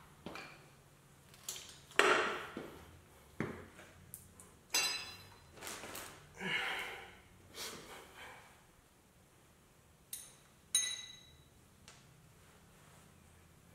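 Metal hand tools clanking and clinking: a run of irregular knocks and clinks, several with a short metallic ring, the loudest about two seconds in, dying away after about eleven seconds.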